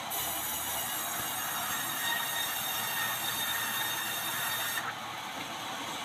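Sawmill band saw cutting through a red meranti board: a loud cutting noise with a steady high whine starts at once and stops abruptly about five seconds in, leaving the saw running with no load.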